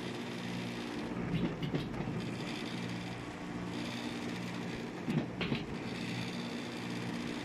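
Fedders window air conditioner running on low cool: a steady low hum with short bouts of rattling about a second and a half in and again just past five seconds, which the owner puts down mostly to the front grille rattling.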